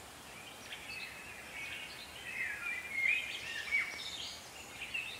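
Small songbirds chirping and whistling, a scatter of short calls and trills that is busiest in the middle, over a faint background hiss.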